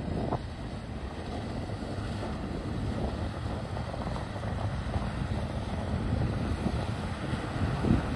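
Single outboard motor on a Sea Cat SL1 catamaran running out on the water, a low rumble mixed with wind buffeting the microphone, gradually growing louder.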